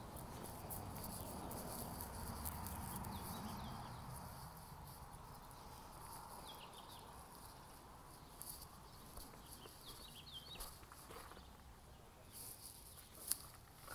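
Footsteps on dry gravel and dirt, with a few faint chirps and a sharp click near the end.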